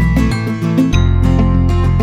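Background music: strummed acoustic guitar with a steady bass line, changing chord about a second in.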